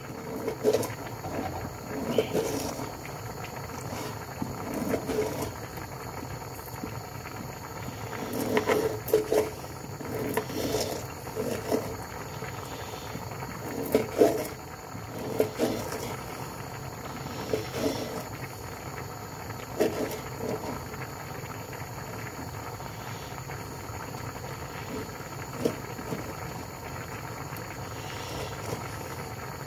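Kitchen knife slicing through chorizo on a plastic chopping board: irregular cuts and sharp taps of the blade on the board, over a steady low background hum.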